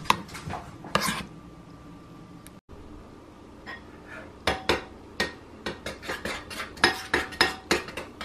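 Metal kitchenware clattering as an oven is opened and a metal loaf pan is handled on the oven rack: a string of sharp clinks and knocks, some ringing briefly, few at first and coming thick and fast in the second half.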